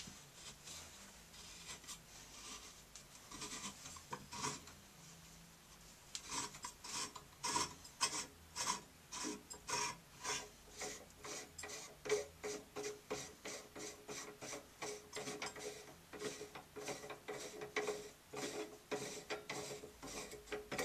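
A hand rubbing around the inside of a brass shower valve escutcheon plate, in a run of short rubbing strokes. The strokes are scattered at first and from about six seconds in come evenly, about two a second.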